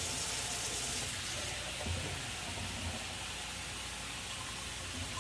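Strips of beef for pepper steak sizzling steadily in a frying pan, an even hiss with a couple of faint knocks.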